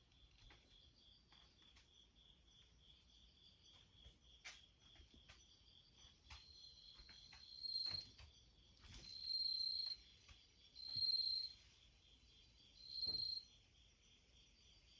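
Japanese bell crickets (suzumushi) chirping: high ringing calls of half a second to a second, repeating every couple of seconds from about halfway, over a steady pulsing insect trill.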